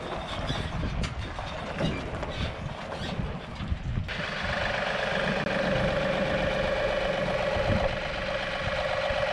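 John Deere compact tractor's diesel engine running as the tractor is driven off a flatbed trailer. About four seconds in the sound changes sharply to a steady engine note with a constant whine over it.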